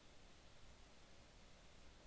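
Near silence: faint room tone with a low hum.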